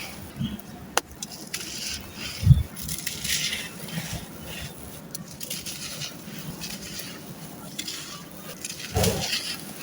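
Dry, gritty sand-cement being crumbled and crushed, with crunching and crackling and a few sharp clicks. A heavy thud comes about two and a half seconds in, the loudest moment, and another near the end.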